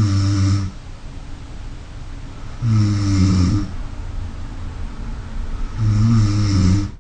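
A sleeping person snoring without an anti-snoring mouthpiece in: three snores about three seconds apart, each about a second long, with a faint hiss between them.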